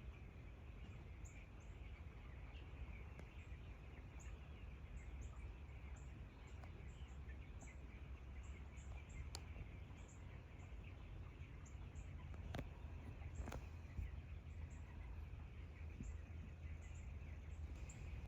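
Faint outdoor ambience: small birds giving short, high chirps every second or so over a steady low rumble and a thin insect-like hiss, with a few sharp clicks around the middle.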